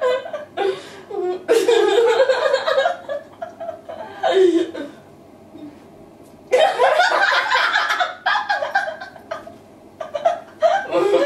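Two women laughing together in repeated bursts, with a short lull in the middle before a long, loud fit of laughter.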